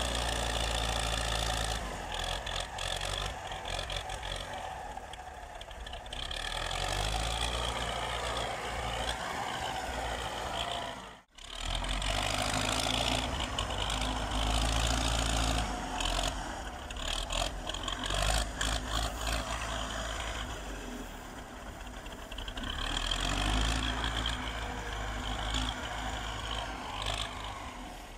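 Wheel loader's diesel engine running while it works snow with its bucket, its pitch rising and falling as it revs under load. There is a brief dropout about eleven seconds in.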